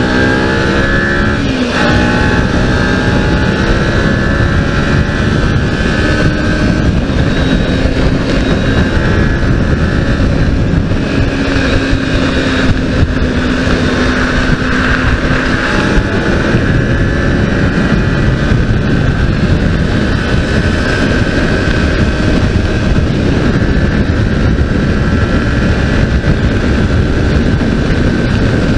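Modenas Ninja 250's parallel-twin engine accelerating, its pitch climbing with an upshift about a second and a half in, then holding steady at highway cruising speed. Heavy wind noise on the microphone lies over it.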